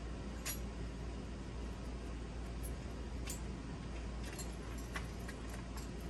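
A few scattered, faint light clicks of small metal parts, lock pins and tweezers being handled while a lock cylinder is rekeyed, over a steady low hum.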